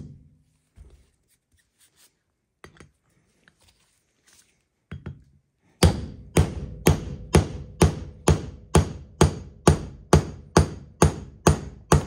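Hammer blows driving a new bearing race into a front wheel hub, struck at a steady pace of about two a second, each with a short metallic ring. The blows start about halfway through, after a few seconds of small knocks from handling the parts.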